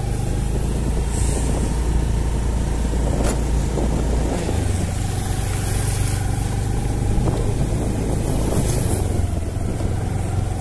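Motor scooter's engine running steadily while riding over a rough dirt road: a continuous low drone with a thin steady whine above it.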